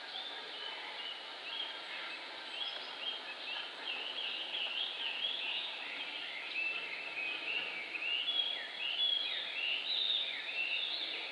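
Many small birds chirping and twittering all through, growing busier and louder in the second half, over faint outdoor background noise.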